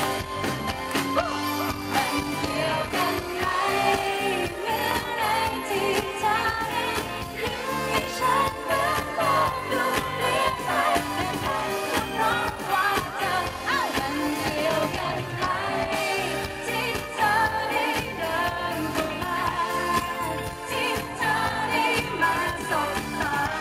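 Live pop band playing through a concert PA, with a man singing over it.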